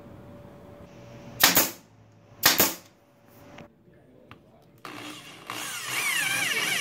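Two short, loud bangs about a second apart early on, then from about five seconds in a corded electric drill driving a screw through a metal corner bracket into a wooden frame, its motor whine rising and falling in pitch as the trigger is worked.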